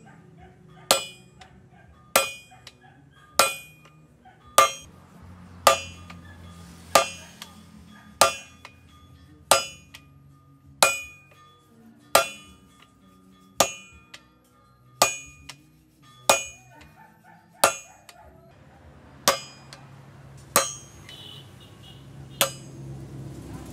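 Sledgehammer blows on a hot-cut chisel driven through red-hot steel on an anvil, splitting the bar for a machete blade. Sharp metallic clangs with a short ring, about one blow every second and a quarter, in a steady rhythm.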